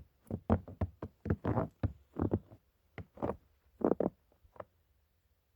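Footsteps crunching through fresh snow, an irregular run of crunches that stops about four and a half seconds in.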